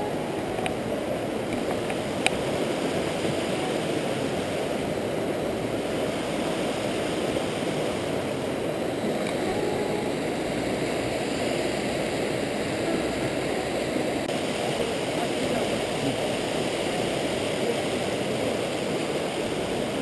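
Mountain stream rushing steadily over rocks and small cascades, with a brief click about two seconds in.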